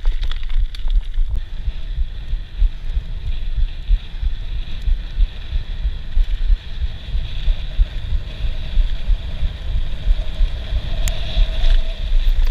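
Wind buffeting the microphone of an action camera on a moving mountain-bike rider, a constant low rumble, with a few sharp knocks from the bike in the first second or so.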